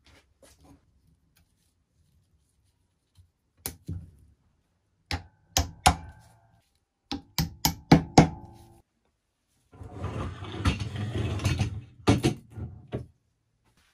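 Metal parts of a manual potato chipper being reassembled: a series of sharp knocks and taps, several with a short metallic ring. About ten seconds in comes a couple of seconds of rough scraping, followed by a few more knocks.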